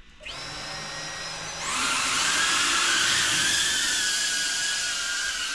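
GEPRC Cinelog25 FPV quadcopter's four small brushless motors (GR1404 4500kv) spinning up at idle with a high whine. About a second and a half in, they throttle up into a louder, wavering buzzing whine as it lifts off.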